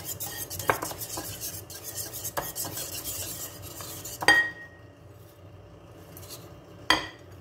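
Wire whisk beating yogurt in a bowl: a fast, wet scraping and rattling with occasional metal clinks against the bowl, stopping with a sharp clink about four seconds in. Another single clink comes near the end.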